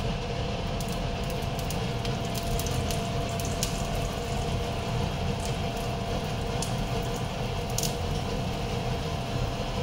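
Dosa batter sizzling on a hot tawa over a gas burner, with scattered small crackles, over a steady low rumble and faint hum.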